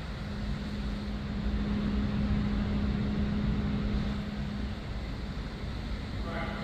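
A machine running steadily: a low rumbling hum with one constant tone, a little louder in the middle.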